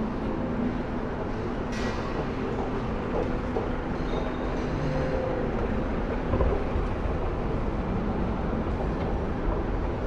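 Steady ambient rumble and hubbub of a large indoor shopping mall, with a short click about two seconds in.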